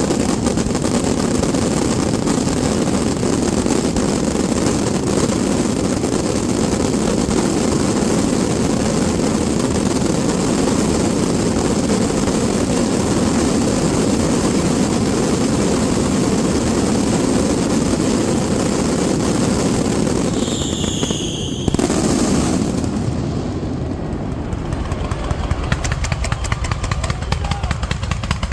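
Fireworks display: a dense, continuous barrage of shell bursts and crackling blending into one rolling rumble. About three-quarters of the way through, a short whistle, then a single sharp bang, after which lighter rapid crackling goes on.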